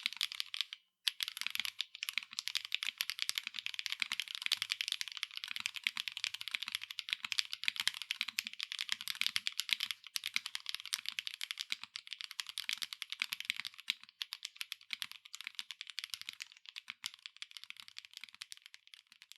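Fast continuous typing on a PAVLOV mechanical keyboard with Kailh BCP linear switches, an aluminium plate, top mount and no foam, capped with PBT doubleshot keycaps: a dense run of keystroke clacks, with a brief pause about a second in.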